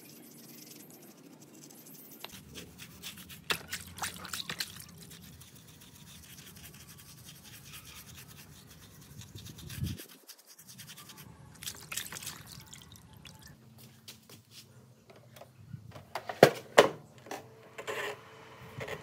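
Bristle paintbrush scrubbing a wet circuit board in a tub of soapy water, in irregular bursts of scratchy strokes with light water sloshing. A few sharper clicks come near the end.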